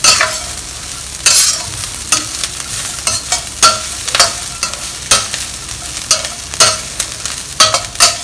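Stir-frying in a cast iron wok: fried chicken pieces and dried chillies sizzling in hot oil while a metal wok spatula scrapes and tosses them, in sharp, irregular strokes about once a second over a steady sizzle.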